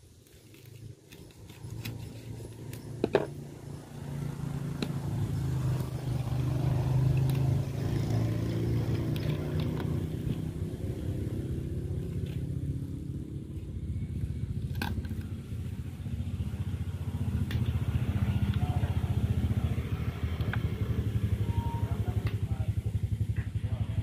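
An engine running close by: it grows louder over the first few seconds, then runs steadily with a fast, even throb. A few sharp clicks ring out over it, the loudest about three seconds in.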